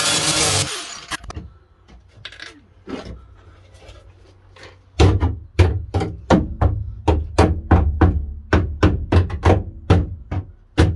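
An angle grinder cutting stops about a second in. After a pause with a few light knocks, steady hammer blows on the car's sheet-metal bodywork begin about five seconds in, about three a second.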